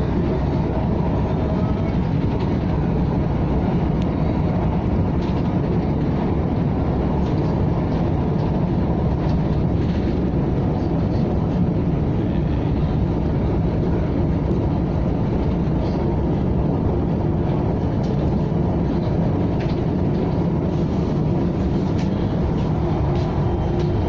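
KTM ETS electric train running along the line: a steady, even rumble with faint scattered ticks.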